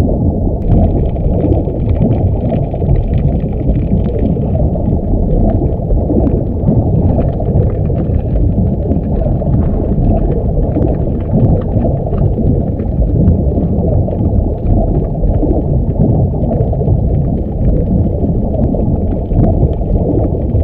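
Underwater ambience sound effect: a steady, muffled rush and rumble of water, with faint high tones in the first few seconds.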